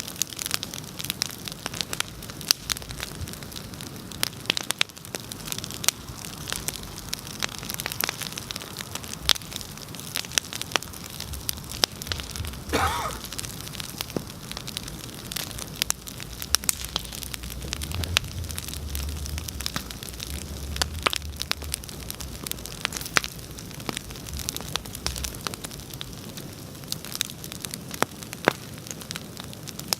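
Bonfire burning, with a steady hiss and many sharp crackles and pops of burning wood. There is a brief wavering whistle about halfway through, and a low rumble through the middle stretch.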